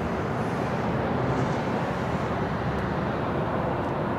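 Steady, even rumbling noise with no distinct events.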